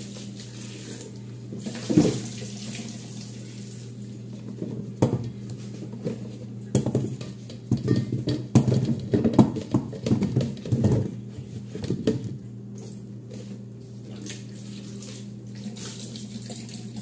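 Kitchen tap running onto peeled onions in a plastic basin, with the onions knocking and bumping against the basin and a stainless-steel bowl as they are rubbed clean and tipped out, most of the knocks falling in the middle stretch. A steady low hum lies underneath.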